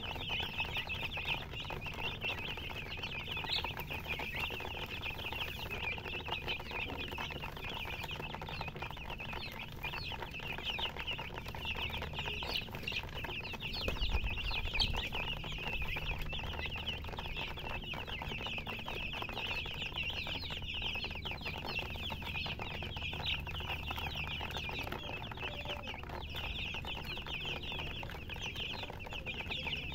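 A flock of baby chicks peeping nonstop, many high, short chirps overlapping into a continuous chorus.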